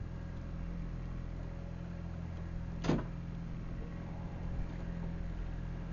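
A boat's engine running steadily, a low hum. About three seconds in comes one brief squeak that falls in pitch.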